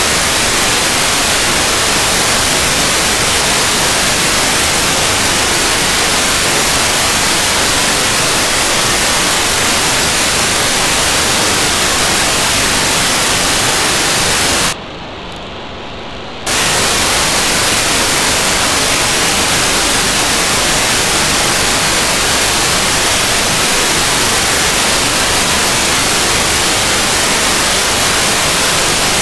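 Steady radio receiver static hiss from an SDR tuned to the ArcCube-01 cubesat's 437.6 MHz telemetry downlink. About halfway through, the hiss cuts out for under two seconds while a quieter, duller data burst comes through: a GMSK telemetry packet from the satellite.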